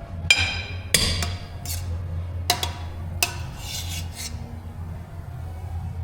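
Metal utensils clinking against dishes and a pot while biryani is dished up: about seven sharp, briefly ringing clinks in the first few seconds, over a steady low hum.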